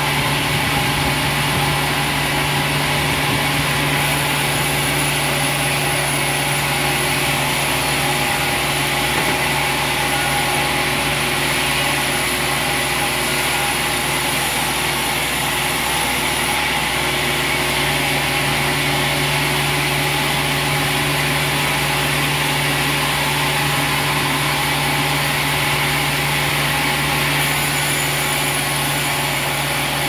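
A large band sawmill running steadily, with its drive and band blade making a continuous even hum without breaks.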